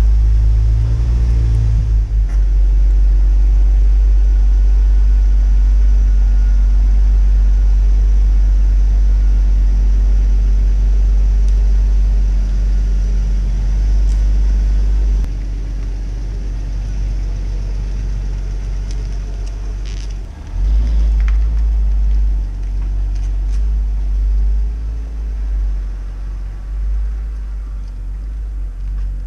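Hyundai Tiburon engine idling just after a cold start, heard at the exhaust as a deep steady rumble. About halfway the level drops; about two-thirds in it revs up and the sound rises and falls as the car pulls out and drives away.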